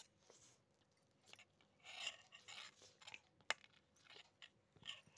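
Faint eating sounds: metal fork and spoon scraping against a steel plate of chow mein, with chewing and a few sharp clicks of cutlery on the plate.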